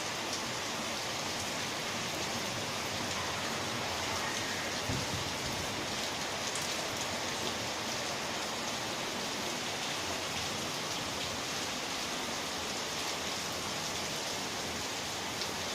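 Steady rain falling and splashing on surfaces, with many fine drop ticks and a brief low thump about five seconds in.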